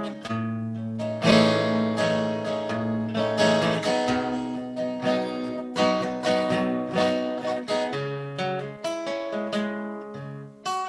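Acoustic guitar played with picked notes and strummed chords, a strong strum about a second in.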